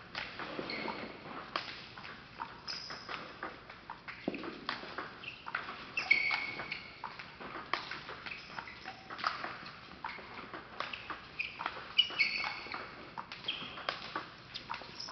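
Table tennis multiball training: celluloid balls cracking off paddles and bouncing on the tables in rapid, irregular clicks, several tables going at once, with short high squeaks now and then.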